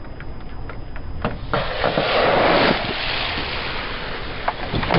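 A car tyre crushing a full two-litre plastic bottle of carbonated cola. About a second and a half in, the bottle bursts suddenly and the cola sprays out with a loud hiss that fades over the next couple of seconds.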